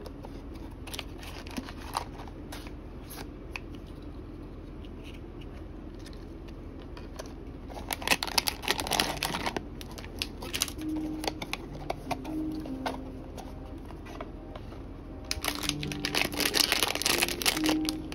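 Small cardboard blind box handled with light clicks and taps, then a plastic blind-box bag crinkling in two dense bursts, about eight seconds in and again near the end, as it is torn open.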